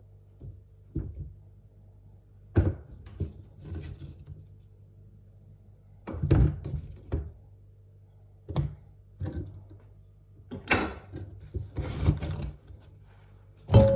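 Kitchen handling noises: irregular knocks and thuds of things being set down and moved about, about a dozen over the stretch, the loudest near the end, over a steady low hum.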